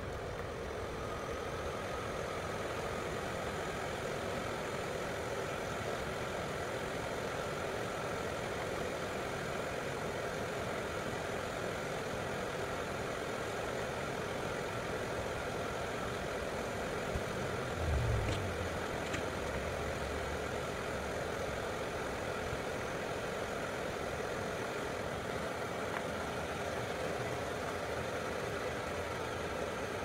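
Vevor 5 kW diesel parking heater running steadily, a continuous whir of its fan, with a brief low thump about two-thirds of the way through.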